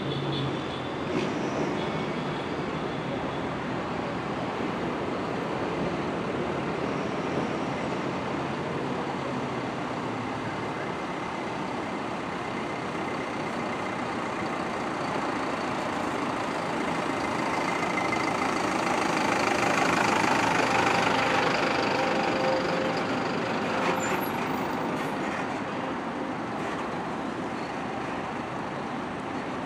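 City buses running, their diesel engines a steady drone, with one growing louder and passing close about twenty seconds in before fading again. A short sharp sound comes about a second in and again just after the loudest point.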